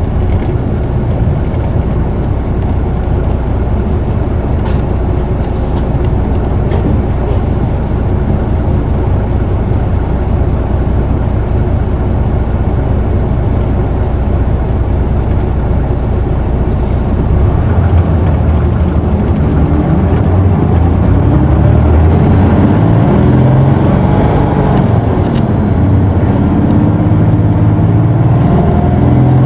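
Isuzu Erga city bus's six-cylinder diesel engine, heard from inside the cabin, running at a steady note, then from about 18 seconds in revving up hard under acceleration, its pitch climbing and getting louder.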